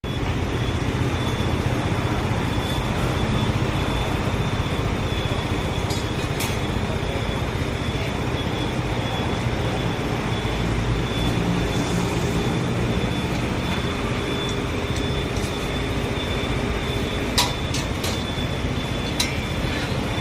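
Steady street traffic noise, a continuous rumble of passing vehicles, with a few faint clicks.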